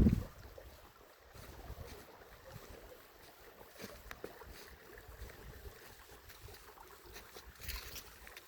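Shallow river water gurgling and trickling unevenly over stones, faint and irregular, with small splashes and a brief brighter splash near the end. A low rumble dies away at the very start.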